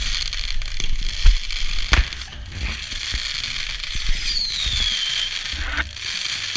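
Fireworks going off: a string of sharp bangs over crackling, the loudest about a second in and again about two seconds in, with a falling whistle about four seconds in.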